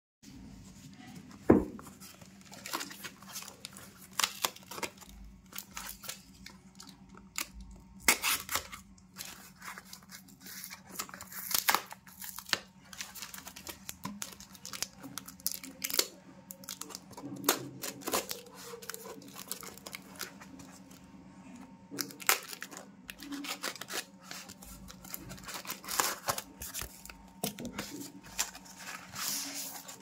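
A cardboard and brown-paper parcel being cut and torn open by hand: irregular ripping and crinkling of the wrapping, with scattered sharp snaps, the loudest about a second and a half in.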